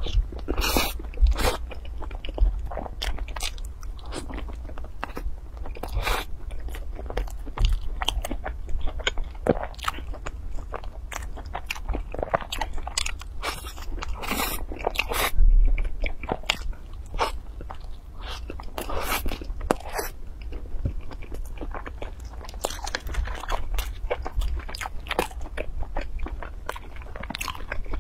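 Biting and chewing of bread pastries: irregular crunchy bites and chewing clicks, close up.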